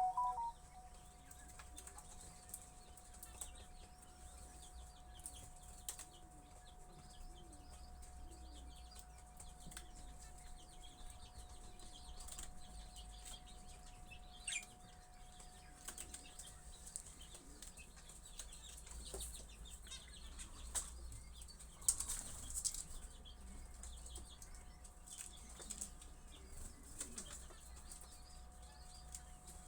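Budgerigars moving about in their cage: faint wing flapping and rustling with a few short chirps, and a slightly louder flurry about three-quarters of the way through.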